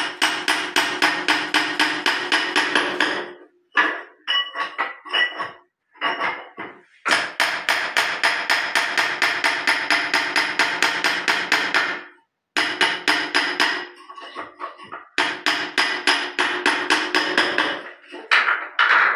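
Rapid hammer blows on a chisel, chipping hardened white and black cement out of the trap of a ceramic Indian squat toilet pan to clear the blockage. The blows come in runs of several seconds at about six strikes a second, with short pauses between, and each blow rings.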